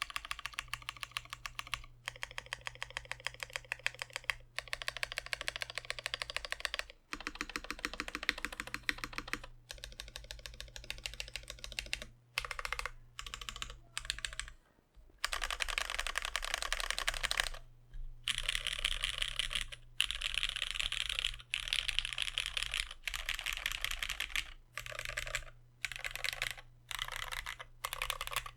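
Typing on a UTD 360c mechanical keyboard with lubed and filmed Cherry MX Black Ultraglide linear switches in an aluminum plate: fast runs of keystrokes in bursts of one to several seconds, broken by short pauses.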